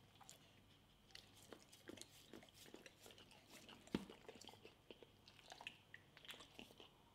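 Faint licking and mouthing of a whole coconut held to a boxer's mouth: scattered small wet clicks, with one sharper click about four seconds in.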